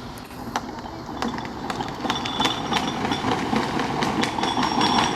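Ride-on toy car rolling down a hill on hard plastic wheels, a rattling, clattering rumble that grows steadily louder as it comes closer.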